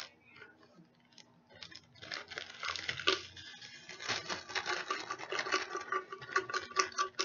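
Garlic salt being shaken out of a spice shaker into flour: a few faint taps, then from about two seconds in a fast, irregular run of rattling, rustly shakes.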